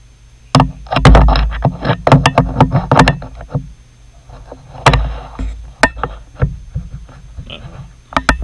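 Steel quick-change lathe tool holder being handled and fitted on the tool post: a quick run of metal clanks and rattles in the first few seconds, then scattered knocks.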